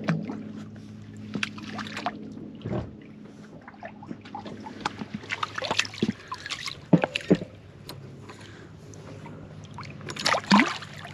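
Water splashing and dripping at the boat's side as a striped bass on a rope stringer is lifted and moved in the water. The splashes come irregularly, with the loudest near the end.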